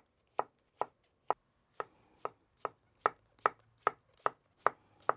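Chef's knife slicing mushrooms thin on a wooden cutting board: a regular run of sharp knife taps on the board, about two a second at first, quickening to about four a second in the second half.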